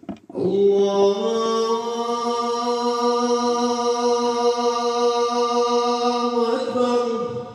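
A muezzin singing the adhan, the Islamic call to prayer, into a microphone. It is one long held note that steps up slightly about a second in, holds steady, then wavers and falls away near the end.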